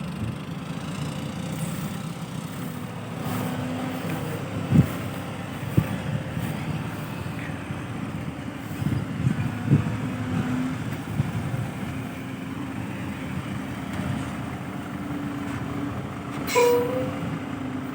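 Diesel engines of dump trucks and an excavator running steadily, with scattered knocks. A brief high squeal sounds near the end.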